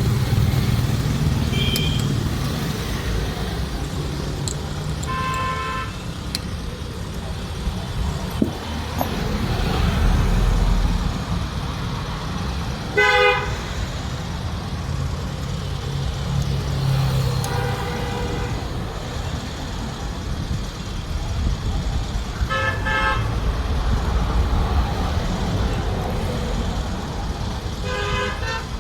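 Road traffic with vehicle horns honking about six times, short toots spread through the stretch, the loudest about halfway through, over a steady low engine rumble.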